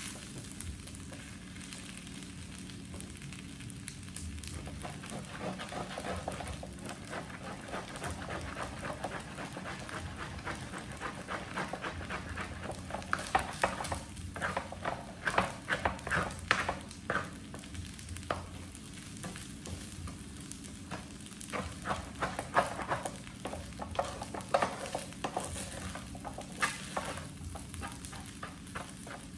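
Fried rice sizzling in a frying pan, stirred with a plastic spatula that scrapes and knocks against the pan. The strokes grow frequent from about halfway in.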